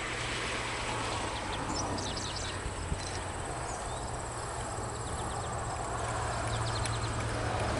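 Rural outdoor ambience: an insect's steady high trill with a few short bird chirps, over a low steady rumble that grows slightly louder near the end.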